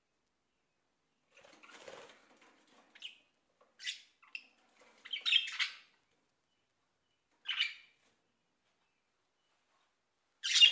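Sun conures giving short, scattered chirps and squawks, with a soft rustle about two seconds in and a louder call near the end.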